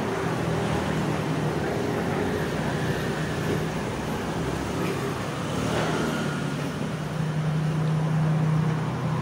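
Steady road-traffic noise with a low engine hum, the hum growing louder near the end.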